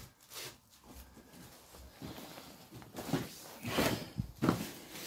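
Footsteps crunching and shuffling over rubble and broken debris on a floor, irregular and getting louder near the end.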